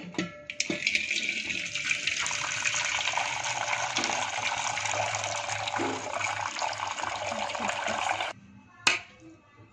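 Cooking water from boiled drumstick leaves poured out of a steel pot past a plate held over its mouth into a steel vessel: a steady splashing pour that stops suddenly about eight seconds in, followed by a single short clink.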